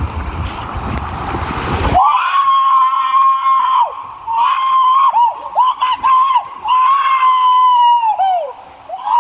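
A rush of water as the slide run starts, then a person screaming inside the enclosed water-slide tube: a string of long, high, held screams, each trailing off downward at the end.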